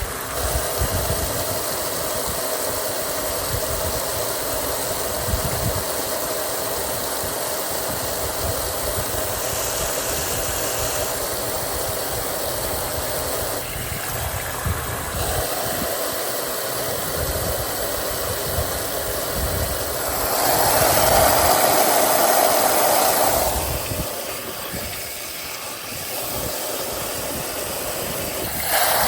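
Mueller Popmatic 8 kg washing machine running mid-cycle: a steady mechanical hum with a hiss and light rattle. About twenty seconds in, a louder rushing noise swells for some three seconds and then falls back.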